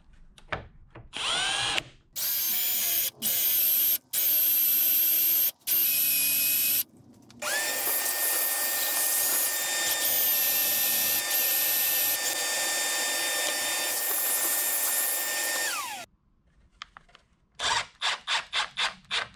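Cordless drill boring 35 mm hinge-cup holes through a concealed hinge jig: the motor whines up and runs in several short bursts, then one long steady run that winds down with a falling whine. Near the end, a rapid series of short clicks.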